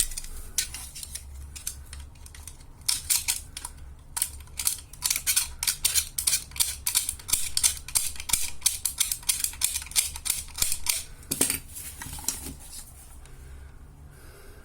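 Rapid run of sharp metallic clicks and snips, about five a second, from a hand tool cutting and picking at a vacuum cleaner motor's copper winding. It starts a few seconds in and stops near the end.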